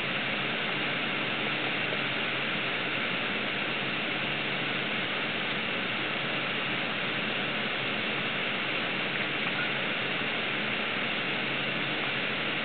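Steady rushing hiss of river water flowing around a wading angler, unbroken and even.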